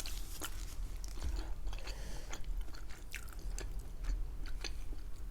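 A person chewing a mouthful of laphing (spicy mung-bean jelly noodles), with scattered small mouth clicks.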